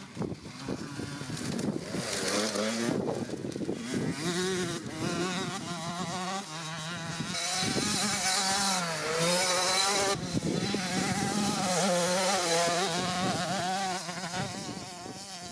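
Small minicross motorcycle engine revving, its pitch climbing and dropping over and over as the rider works the throttle along the track.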